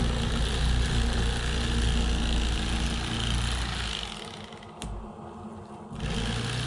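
A running engine's steady low hum. It drops away for about two seconds partway through, with a single sharp click in that gap, then comes back.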